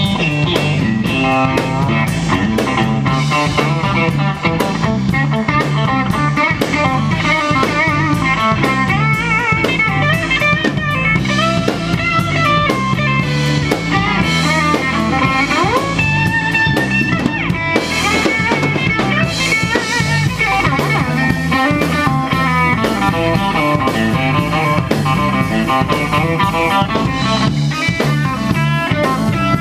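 Live blues band playing loud: a Stratocaster-style electric guitar takes an instrumental lead full of bent notes over a drum kit.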